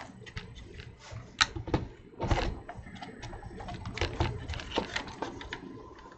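Scattered clicks and light knocks as a computer motherboard is picked up, turned over and set down on a silicone work mat, over a faint low steady hum.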